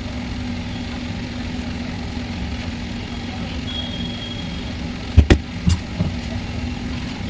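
A steady engine-like hum at idle with a low drone, broken about five seconds in by a quick pair of sharp knocks and one or two lighter ones.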